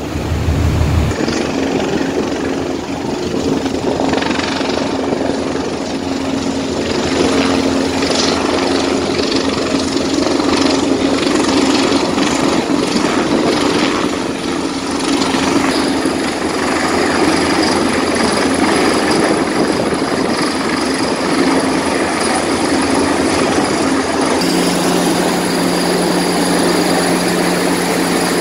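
Large search-and-rescue helicopter flying in and hovering low overhead: a heavy, steady rotor and turbine noise that builds over the first several seconds as it closes in, then stays loud and even.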